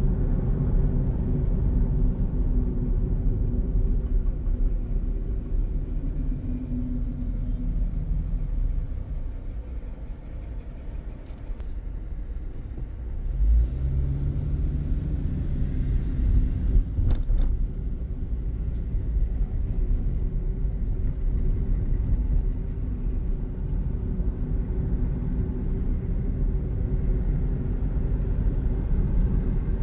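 Car engine and road noise heard from inside a moving car, a steady low rumble. It goes quieter for a few seconds near the middle, then rises again with the engine pitch climbing as the car picks up speed, and a brief click follows soon after.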